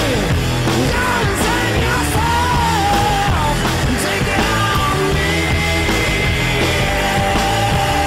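Rock music with a singing voice over a steady, repeating bass line.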